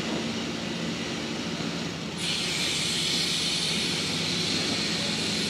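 Large engine running steadily; about two seconds in, a loud steady hiss starts suddenly and continues.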